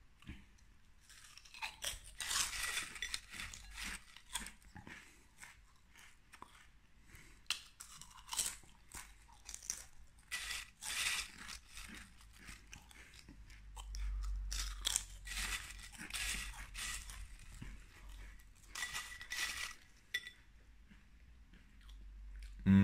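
Potato chips being bitten and chewed: a run of irregular crisp crunches with short pauses between them.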